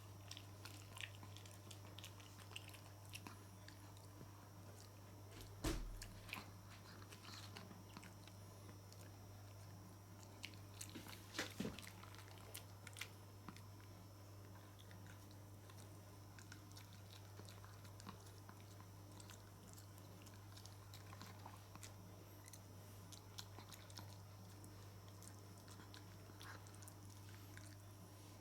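Pets chewing and biting on pieces of grilled smoked tofu: faint, scattered mouth clicks and crunches, with a louder knock about six seconds in and a short cluster near twelve seconds, over a steady low hum.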